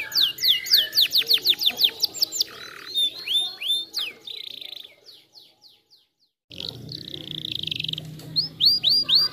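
Domestic canary singing: fast runs of sharp, downward-sliding whistled notes, several a second, then a buzzy rolling trill after a brief total dropout about six seconds in, and more falling notes near the end.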